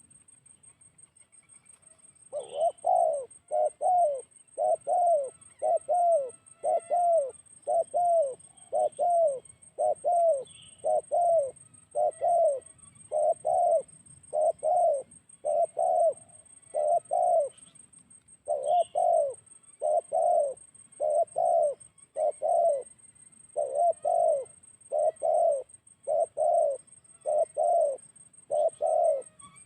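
Spotted dove (tekukur) cooing over and over, a steady series of low paired coos about one pair a second, starting about two seconds in with a brief pause later.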